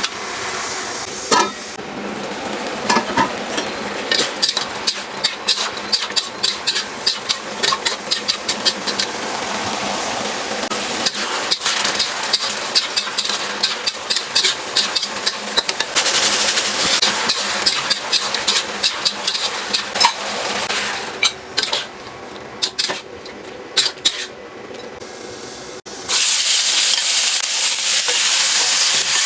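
Food sizzling in a hot pan while a spatula clacks and scrapes against it in quick, repeated strokes. About 26 seconds in, after a quieter stretch, a sudden loud hiss starts, as when ingredients are tipped into hot oil.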